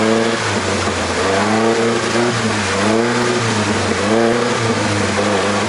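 A 1984 Datsun/Nissan pickup's engine revving again and again over a steady low drone, its pitch rising and falling about once a second. The truck's wheels are sunk in lake-bed mud and it is trying to drive free, flinging mud.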